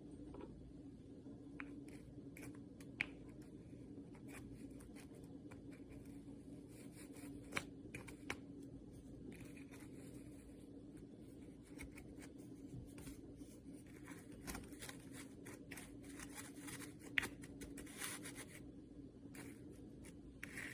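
Faint handling noises, light clicks, scratches and rustling with a few sharper ticks, over a steady low hum.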